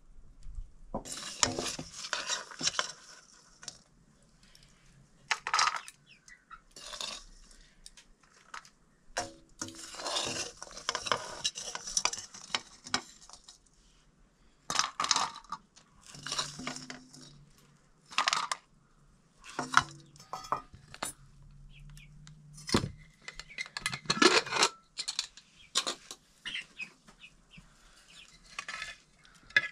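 Metal spoon clinking and scraping against stainless steel plates and bowls as food is served out, in irregular clatters with short pauses between them.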